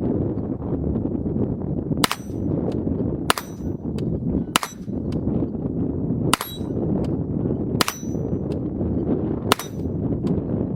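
Six shots from a .22 LR rifle fired at a steady pace, about one every one and a half seconds, each followed by a brief high metallic ring typical of a steel target being hit. A steady low rush of wind runs underneath.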